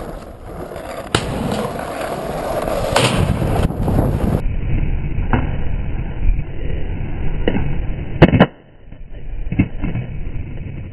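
Skateboard wheels rolling on asphalt, with sharp clacks of the deck against the ground. The loudest sound is a pair of hard cracks of board striking the ground about eight seconds in.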